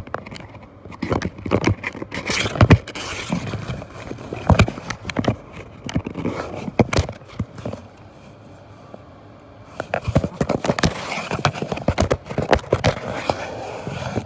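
A kitten pawing and scratching at the cardboard around a hole in a box, close to the microphone: an irregular run of scrapes and knocks, with a lull of about two seconds past the middle.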